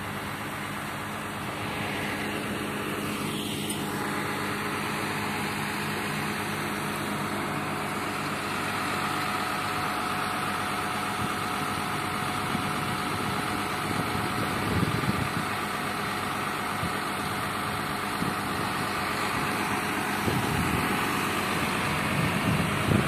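A heavy truck's engine idling steadily.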